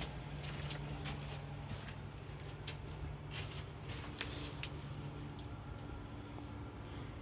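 A low steady mechanical hum that fades out briefly about three seconds in and then returns, with scattered light clicks and ticks over it.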